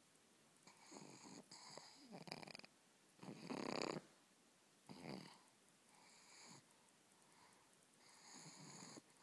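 A pug snoring in its sleep: about six snoring breaths with quiet pauses between, the loudest about three and a half seconds in.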